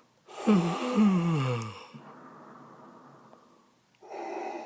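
Creature sound effect for the Sarlacc settling to sleep and digest: a deep, rough groan that falls steeply in pitch over about a second and a half, followed a couple of seconds later by a quieter breathy rasp.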